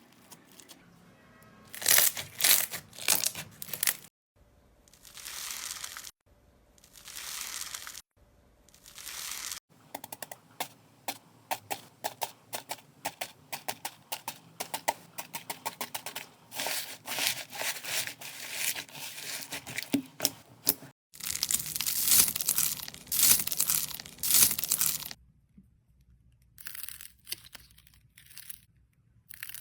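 Slime being handled, making crackling and crinkling sounds in bursts of a few seconds with short pauses between, and a long run of rapid crackles in the middle.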